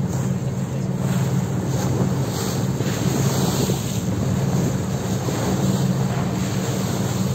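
A cutter's engine running steadily underway, a constant low drone, with water rushing along the hull and wind on the microphone.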